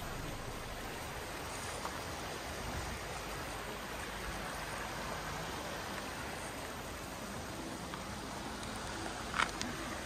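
Mountain stream running over rocks: a steady wash of water noise, with one short sharp click near the end.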